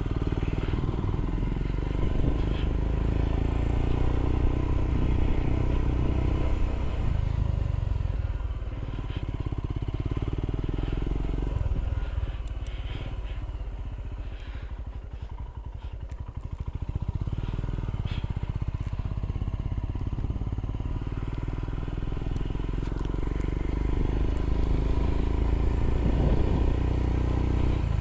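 Royal Enfield Himalayan's single-cylinder engine running as the motorcycle rides. The engine note falls away about halfway through and builds again toward the end.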